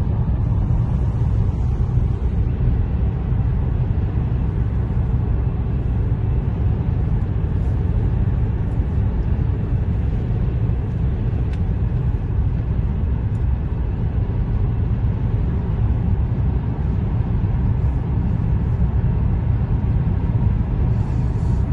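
Steady low road noise inside a car cruising at highway speed: tyres on pavement and engine hum as an even rumble.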